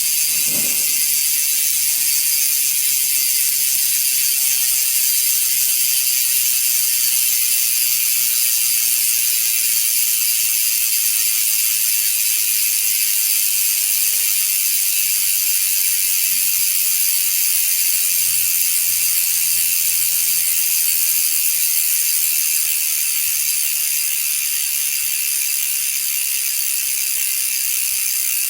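Ragusa XM800 bicycle hub freewheeling, its ratchet pawls clicking so fast they merge into a steady high-pitched buzz. It grows slightly quieter over the last few seconds.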